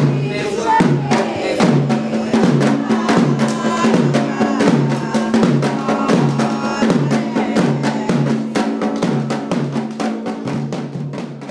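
Percussion-driven music: quick, evenly spaced drum strokes over a repeating low two-note bass figure, cutting off abruptly at the end.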